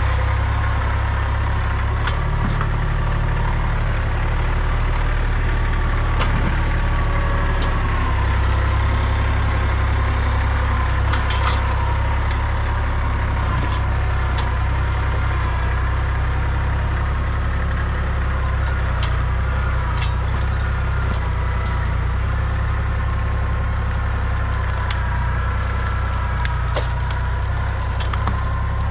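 Kubota compact tractor's diesel engine running steadily under load as its front loader pushes through a brush pile, with a faint whine drifting in pitch. Branches and sticks snap and crack at intervals, more often in the second half.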